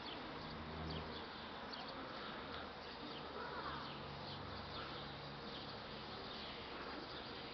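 Faint, wavering buzz of bees flying around the flowering plants, with faint short high chirps in the background.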